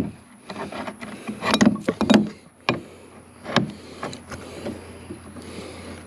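Metal hardware being handled at a wheelbarrow axle: a run of clicks and clunks as the nut and washer go on and an adjustable wrench is picked up, loudest in a cluster about a second and a half to two seconds in.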